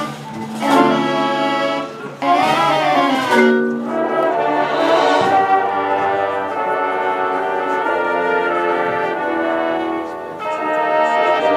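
High school marching band playing: brass sustaining chords with swells, briefly dropping back about two seconds in and again near the end.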